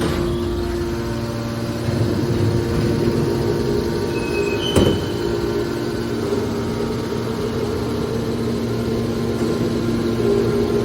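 Scrap metal baler running with a steady machine hum, with one sharp metallic bang about halfway through.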